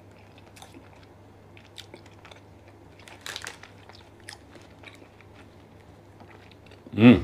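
A person chewing a mouthful of shawarma sandwich close to the microphone: soft, scattered wet mouth clicks and smacks over a faint steady hum, with a short voiced hum near the end.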